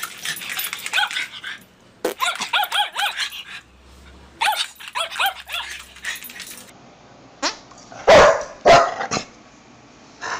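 Small dog barking and yipping in rapid runs of short, high cries, several a second. Around seven seconds in the sound changes, and a few loud, single sharp barks follow, the loudest two about half a second apart.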